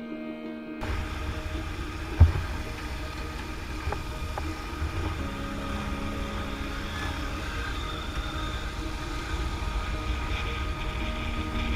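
Motorcycle running on the road, with heavy low wind rumble on the microphone; a single sharp knock about two seconds in.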